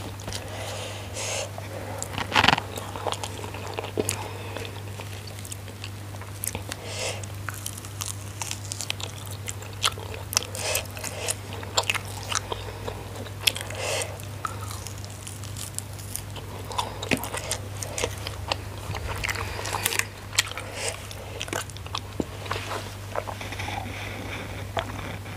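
Close-miked chewing and crunching of food eaten by hand, with many short sharp crunches scattered throughout over a steady low hum.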